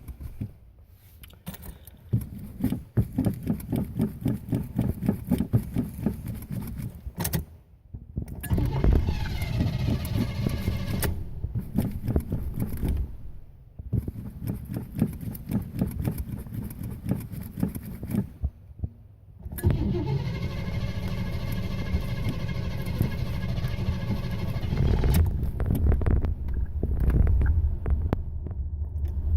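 Car engine being cranked by its starter in three long attempts with short pauses between them, hard to start, before it catches about twenty seconds in and keeps running, getting louder near the end.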